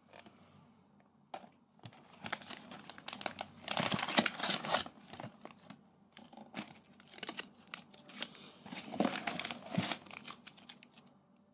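Crinkling and crumpling of foil-wrapped military dry-ration packets being handled and pulled out of their cardboard box, in irregular rustling bursts, loudest about four seconds in and again about nine seconds in.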